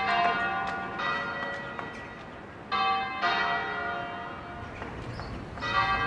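Church bells ringing: about four strokes, two of them close together in the middle, each ringing on and slowly fading.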